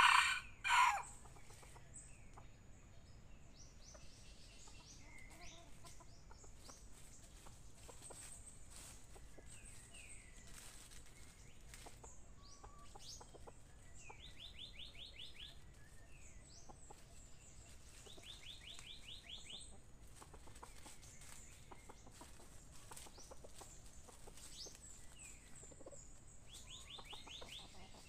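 Red junglefowl calling: two loud, short clucking calls at the very start. Then faint rustling and scratching in dry leaf litter as the birds forage, with a few brief high rattling trills in the background.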